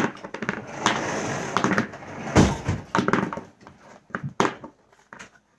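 Small plastic slime jars clacking and knocking as they are set down on a wooden tabletop, with a stretch of rustling and one heavier knock about halfway through.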